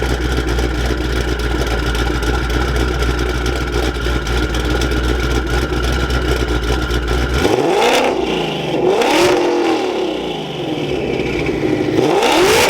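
Twin-turbo Shelby GT500 V8 running through a Corsa Xtreme active catback exhaust, a steady drone at first, then revving up and back down several times from about seven seconds in.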